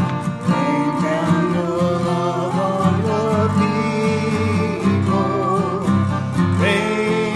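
Contemporary church choir singing a hymn with acoustic guitar accompaniment.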